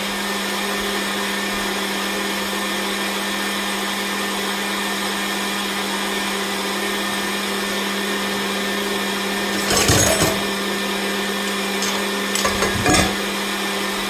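Red Cooks countertop blender running steadily, blending a thick punch mixture of boiled carrot, oats and seeds. Two louder knocks come about ten and thirteen seconds in.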